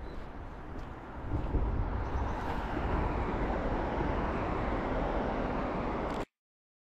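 Road traffic on the high road bridge overhead: a steady rush of tyres and engines that swells about a second and a half in, holds, then cuts off suddenly near the end.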